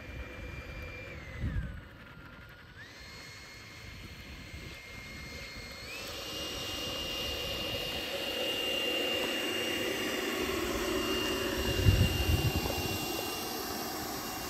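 Whine of the 70 mm electric ducted fan in a Fly Fans JAS-39 Gripen model jet, its pitch stepping with the throttle. It dips about a second and a half in, then climbs in steps around three and six seconds in, growing louder toward the middle. Low thumps come about a second and a half in and, loudest, about twelve seconds in.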